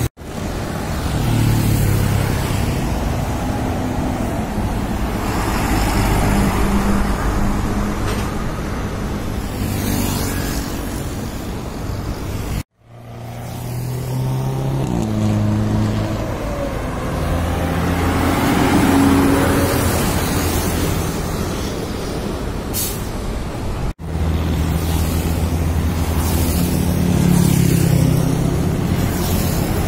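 Diesel lorries and cars passing on a highway, their engines rising and falling as each goes by, over steady tyre and traffic noise. The sound cuts out and restarts twice, and a short hiss comes about two thirds of the way through.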